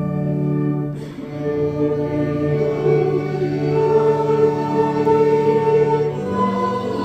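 Congregation singing a hymn with instrumental accompaniment, holding long chords that change about a second in and again near the end.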